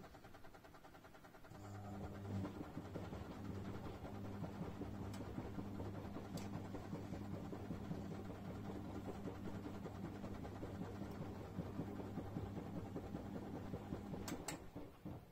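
A 1994 Bompani BO27027 washer dryer tumbling its wash: the drum motor hums steadily as it turns the load through the soapy water. It starts about two seconds in and stops near the end with two sharp clicks.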